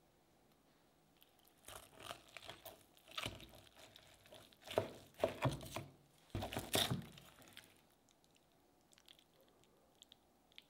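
Chef's knife sawing through a seared steak topped with melted cheese and pepperoni, on a plastic cutting board: a run of crunchy, crackling cutting strokes that stops about three-quarters of the way through, followed by a few faint ticks.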